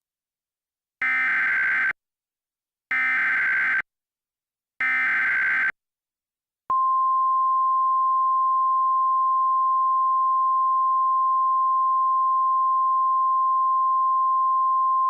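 Emergency Alert System SAME header: three short bursts of screechy digital data, each about a second long with a short gap between. About seven seconds in, NOAA Weather Radio's steady single-pitch alert tone starts and holds, signalling that an alert message follows.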